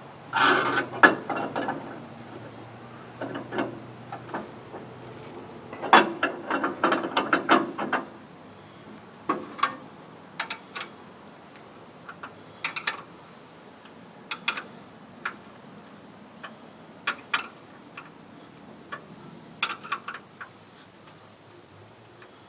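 Metal clicks and knocks of hand tools tightening the blade on a band sawmill, ratchet-like, bunched near the start and again about six to eight seconds in, then single clicks every second or so.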